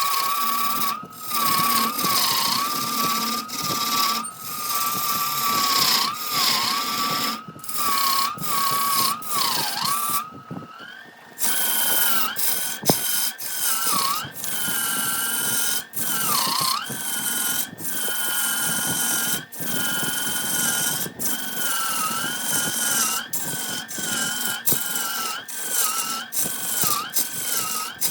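Wood lathe running while a turning tool cuts wood: a steady motor whine that sags in pitch each time the tool bites, over a hiss of cutting. About eleven seconds in the sound briefly drops away, and the whine comes back higher-pitched.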